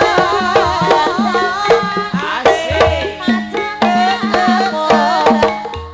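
Banyumas ebeg gamelan music: kendang hand drums play a steady pattern of pitch-bending strokes under metallophones and a high wavering melody line. The music thins briefly near the end before a low booming stroke starts the next phrase.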